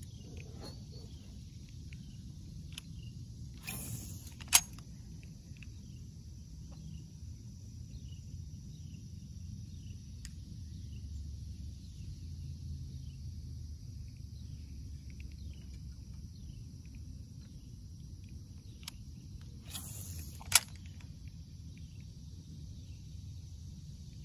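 Two brief, identical sounds about sixteen seconds apart, each a short high hiss ending in one sharp click, typical of line paying off a spinning reel during a cast and the bail snapping shut. Under them is a steady low rumble.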